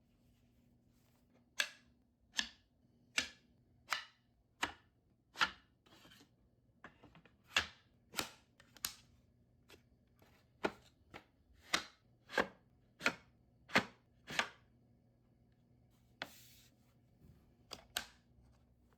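Kitchen knife chopping on a cutting board: a run of sharp, separate strikes about one every two-thirds of a second, a short pause with a brief rustle, then two more strikes near the end.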